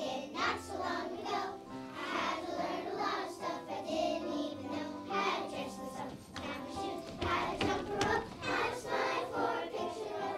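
A group of kindergarten children singing a song together over a steady musical accompaniment.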